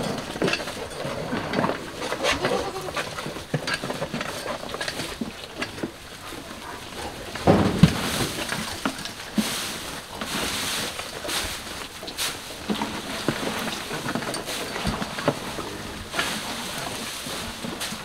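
Goats feeding at hay, bleating now and then over rustling and scattered knocks, with the loudest knock about eight seconds in.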